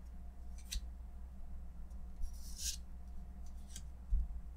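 Magic: The Gathering trading cards sliding against each other as they are flipped one by one through a hand-held stack: three short papery swishes, the middle one longest, over a low steady hum. A soft low bump near the end.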